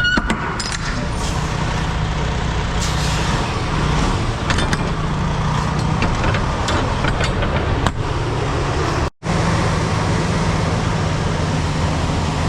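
Semi truck's diesel engine running steadily, with a few scattered clicks over it; the sound drops out for a split second about nine seconds in.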